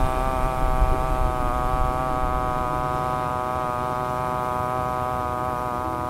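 A man's voice holding the qigong heart healing sound "ha" as one long, steady tone on the exhale.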